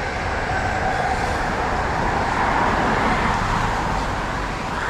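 Steady rushing noise of a passing road vehicle, swelling to its loudest about three seconds in and then easing off.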